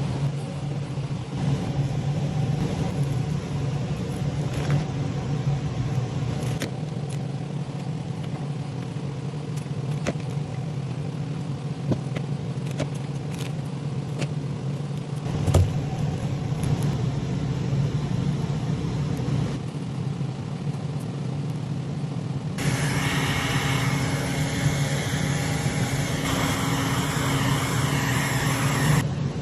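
Steady low hum with a few faint clicks and rustles as plastic wrap is handled. About three-quarters of the way in a heat gun starts blowing, a loud even hiss over the hum, shrinking the plastic film onto a wooden log, and it cuts off just before the end.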